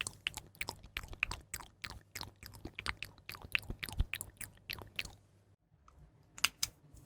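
Close-miked crisp clicking and crackling: a rapid, uneven run of small clicks for about five seconds, a brief lull, then a few more clicks near the end.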